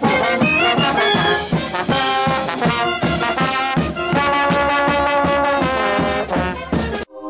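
Street brass band with sousaphones and trombones playing a lively tune over a steady beat. It cuts off abruptly near the end.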